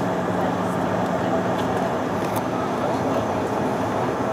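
Cabin noise inside a Bombardier CRJ-900LR at taxi: a steady drone from its twin rear-mounted turbofan engines, with a few even tones in it, over a broad hiss of air and rolling noise.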